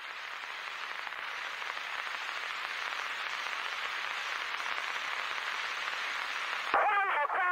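Steady hiss of radio static on the Apollo 1 air-to-ground communications recording, slowly growing louder, until a distorted radio voice cuts in near the end.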